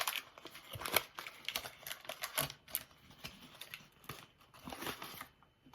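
Rustling and crinkling of baseball cards and their pack wrapper being handled, with many quick light clicks, thinning out near the end.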